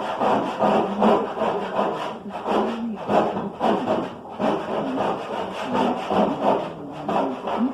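Hand scrubbing or rubbing on the metal toolbox, rhythmic back-and-forth rasping strokes about two a second.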